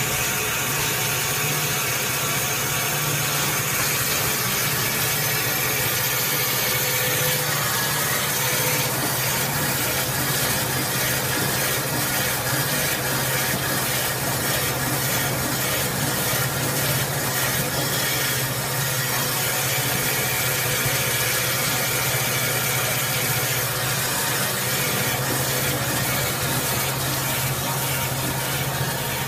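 Automatic band-saw toilet-paper log cutting machine running continuously, a steady mechanical drone with a low hum under a hiss.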